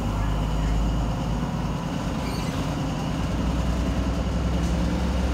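InterCity 125 (HST) train moving slowly along the platform, its diesel power car's engine giving a steady low hum that grows a little louder about three seconds in.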